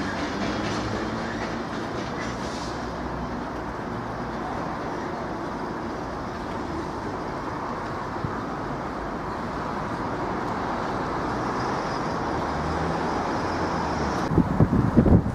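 Class 66 diesel locomotive running light: its two-stroke V12 diesel engine runs steadily as it rolls over the tracks. Wind buffets the microphone near the end.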